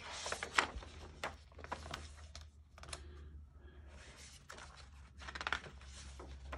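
Faint taps and paper rustles from hands handling a picture book's pages, with a page being turned near the end.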